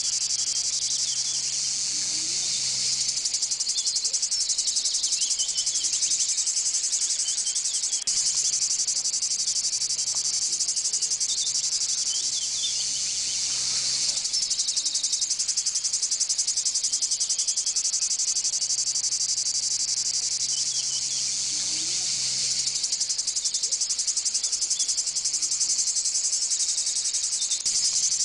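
A loud, dense chorus of insects: a steady high buzz made of rapid pulses that swells and eases every several seconds. Faint short bird chirps come through it now and then.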